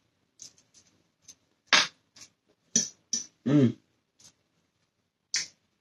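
Close-up eating sounds: wet lip smacks and chewing clicks in irregular bursts, with a short hummed "mm" about three and a half seconds in.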